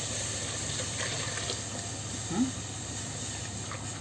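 Milk pouring into a pan of hot butter-and-flour roux for béchamel: a steady hiss of liquid running into the pan.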